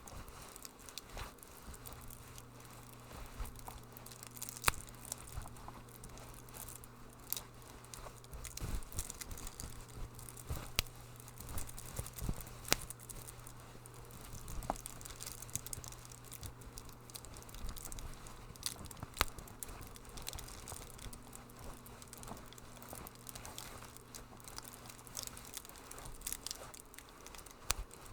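Wood fire crackling in a fireplace: irregular sharp pops and snaps over a soft hiss, with a steady low hum underneath.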